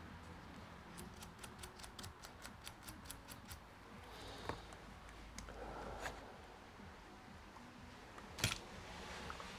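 Faint bench-handling sounds: a quick run of about fourteen light clicks, roughly five a second, then a few scattered knocks and rustles, and one sharper click near the end.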